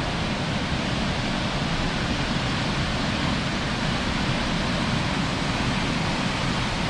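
Waterfall rushing, a steady, even wash of water noise that covers deep and high pitches alike without a break.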